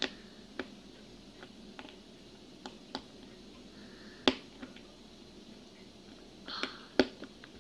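Irregular small sharp clicks and taps as a screw is pressed and turned through a fingerboard truck with a small fingerboard tool, the loudest about four seconds in and near the end.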